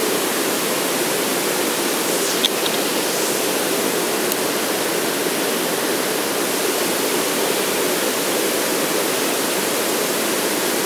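Steady rush of running water, even and unbroken, with one short click about two and a half seconds in.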